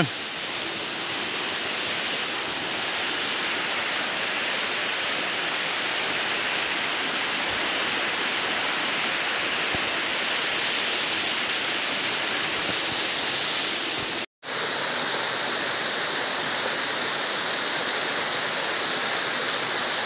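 Steady rush of a small waterfall splashing down over rocks. About fourteen seconds in it cuts out for an instant and returns louder and brighter, close to the falling water.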